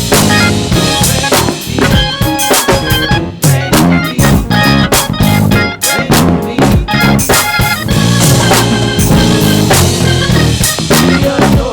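Live gospel church band playing an instrumental groove without singing. A drum kit leads, with rapid snare and bass drum hits, over guitar and other band instruments.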